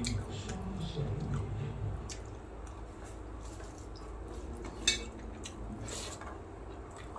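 Fingers mixing rice and curry on a steel plate and eating by hand: soft wet squishes and small scattered clicks, with one sharp click a little before the five-second mark, the loudest sound, and another about a second later.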